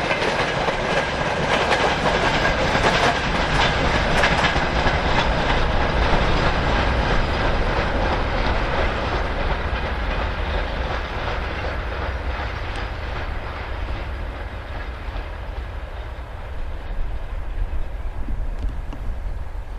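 Freight train of empty cement hopper wagons and open gondolas rolling past, wheels clattering rhythmically on the rails. The sound fades over the second half as the tail of the train moves away.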